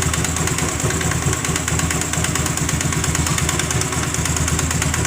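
Honda Grazia 125 scooter's single-cylinder engine idling, with a rapid metallic ticking ("kit kit kit") coming from the engine: the abnormal engine noise it was brought in for.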